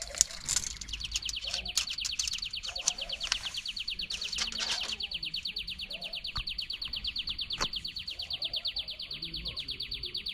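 A small animal's high, rapid trill: a steady run of chirps, about eight or nine a second, starting about a second in and not stopping. A few sharp clicks sound over it now and then.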